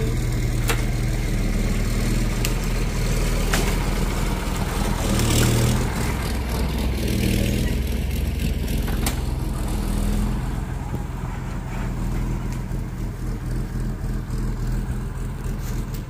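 A vehicle's engine running steadily at low speed, with a few sharp clicks or cracks in the first half.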